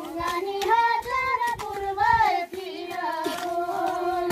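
A high voice singing a Nepali village folk song, holding long notes that bend and glide in pitch: the traditional song sung while weeding maize.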